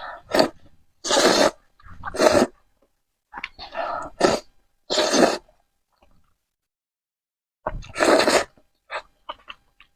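A person loudly slurping spicy Korean noodles in six or so separate slurps of about half a second each, then a few small mouth clicks of chewing near the end.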